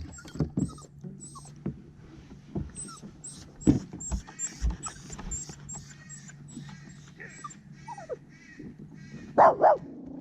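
Dog whimpering and fussing, then two loud barks close together near the end.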